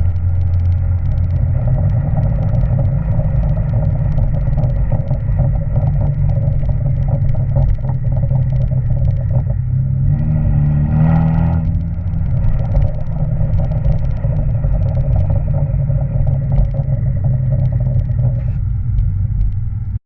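Kia Stinger's twin-turbo V6 running through a GT-9 cat-back exhaust, a steady low burble with frequent crackles. About halfway through, a single rev rises in pitch and drops back.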